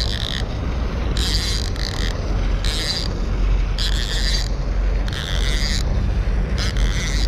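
Baitcasting reel whirring in about six short bursts roughly a second apart as line is worked against a hooked Chao Phraya catfish. Wind rumbles on the microphone underneath.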